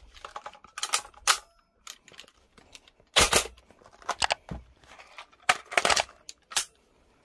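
Scattered sharp plastic clicks and clacks from handling a toy rifle, some single and some in quick clusters of two or three.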